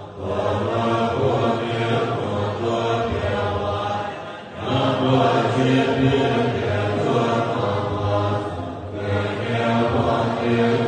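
A large assembly of Tibetan Buddhist monks chanting prayers in unison from their texts, a low-pitched group recitation that drops briefly about every four and a half seconds before resuming.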